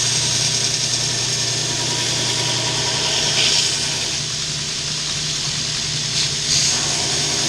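Electric shop power tool running steadily, a constant motor hum under a loud, even hiss, used in shaping the glued-up knife handle.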